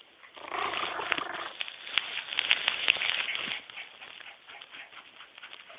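A small dog gives a strained, pitched vocal sound about a second long, an attempt at a bark, followed by a run of sharp clicks and scuffles.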